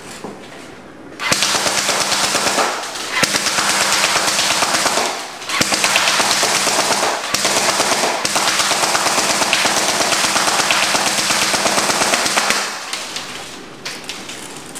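G&G FN Herstal SCAR automatic airsoft rifle firing long full-auto bursts, a fast even rattle of the electric gearbox cycling and BBs shooting out. It starts about a second in, stops briefly three times, and cuts off near the end.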